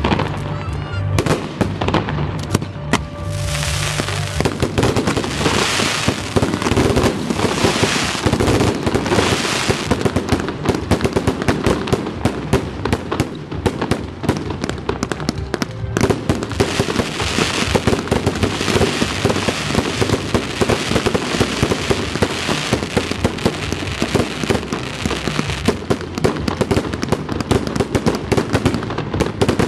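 Fireworks display: a dense, continuous barrage of bangs and crackling from aerial shells bursting and ground fountains spraying sparks.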